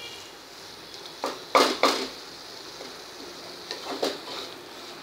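Wooden spatula scraping and knocking against a black kadhai while stirring a sticky coconut and jaggery filling: about five separate strokes, the loudest about a second and a half in.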